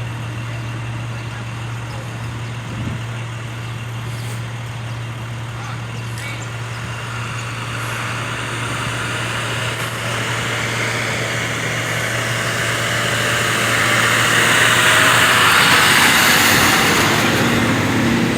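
A road vehicle passing close by, its engine and tyre noise growing louder to a peak about three-quarters of the way through and then easing, over a steady low engine hum.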